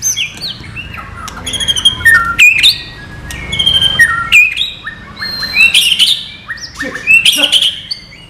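White-rumped shama (murai batu) singing: a rich, varied run of clear whistles, rising and falling slurs and quick chirping notes, phrase after phrase with short pauses between.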